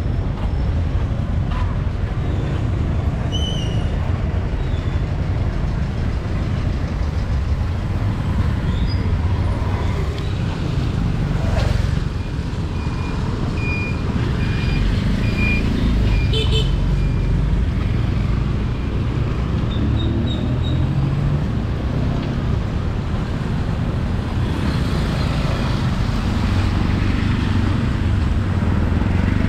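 Steady street traffic noise of passing motor vehicles, with a few short horn beeps about midway through.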